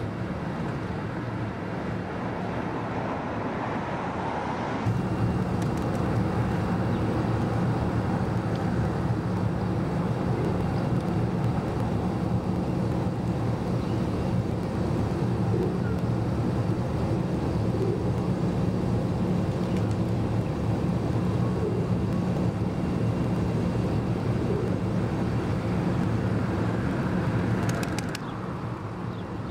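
Steady low mechanical drone of engine machinery, a constant hum with a noisy wash over it. It gets louder about five seconds in and drops back just before the end.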